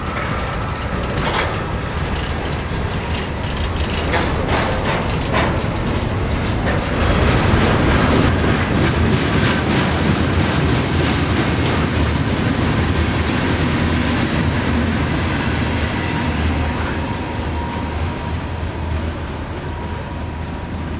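Freight cars of a long mixed freight train rolling past close by: a steady rumble of steel wheels with a rapid clickety-clack over the rail joints. It is loudest a third of the way in and eases off a little near the end as the last cars go by.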